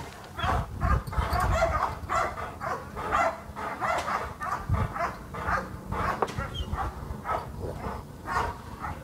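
Dog barking repeatedly, about two to three short barks a second.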